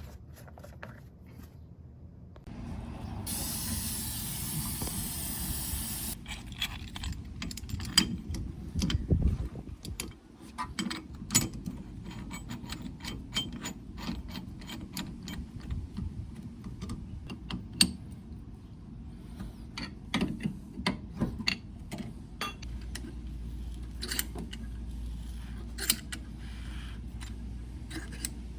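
Hand tools clicking, clanking and scraping on the metal parts of a car's rear disc brake as it is taken apart, with a steady hiss lasting about three seconds near the start.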